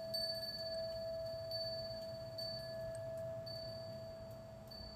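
Faint background sound of steady, chime-like ringing tones held without a break.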